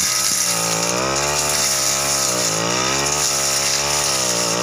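Backpack brush cutter running at high throttle while cutting through dense scrub and ferns. The engine note sags under the load and picks up again about three times.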